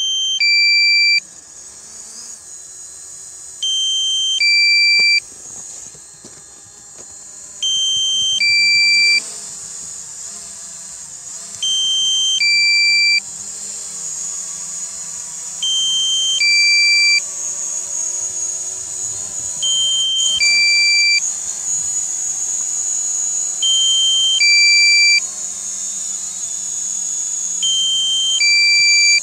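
DJI GO app's low-battery warning alarm for a Mavic Pro drone, sounding through the phone: a loud two-note electronic beep, a higher tone stepping down to a lower one, repeating about every four seconds. The alarm marks the drone's low battery voltage. A steady high hiss runs underneath.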